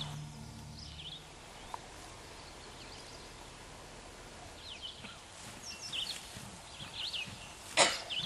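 Faint birdsong outdoors: scattered short, high chirps over a quiet background, with one sharp knock near the end.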